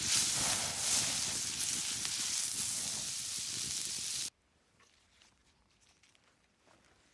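Corn roasting over a campfire: a steady hiss with many small crackles, which cuts off abruptly about four seconds in, leaving only faint ticks.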